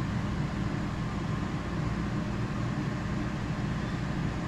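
Steady machine hum with a constant low tone and an even whir, unchanging throughout.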